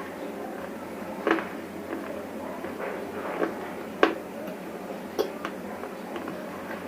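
Close-up crunching as a person bites and chews brittle pieces of broken bar: about six sharp crunches spread unevenly over the few seconds, the loudest about four seconds in.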